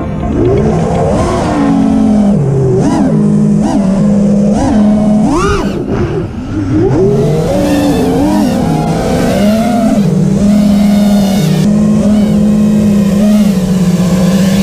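FPV freestyle quadcopter's brushless motors and propellers whining as heard from the onboard camera, the pitch swooping up and down again and again as the throttle is worked.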